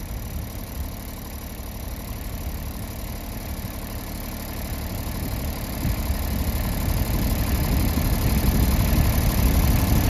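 A small tractor's engine idling, a low steady sound that grows louder from about halfway through.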